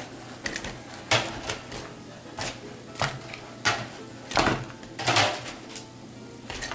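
Crispy fried pork rib pieces being set down one after another onto rice in a foam takeout container, a run of sharp clacks and knocks about once a second.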